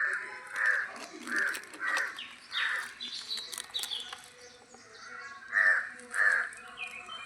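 A bird calling in short repeated calls: about five in quick succession, then two more near the end, with fainter chirps of other birds in between.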